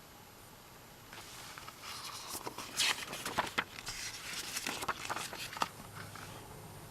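Paper rustling and small clicks as the pages of an album photobook are handled and turned, in an uneven run from about a second in until near the end.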